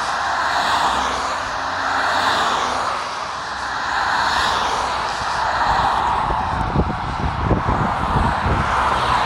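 Ambulance siren wailing, rising and falling about every two seconds. Low rumbling gusts join it in the last few seconds.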